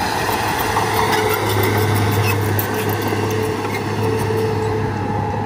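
Komatsu D31P crawler bulldozer's diesel engine running with a steady low drone as the machine moves on its steel tracks.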